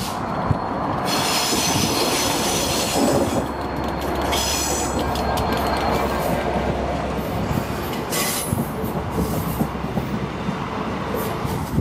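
Class 67 diesel-electric locomotive passing close by with its engine running, hauling an unpowered ScotRail Class 385 electric unit. The unit's carriages then roll past with wheel noise and bouts of high-pitched wheel squeal.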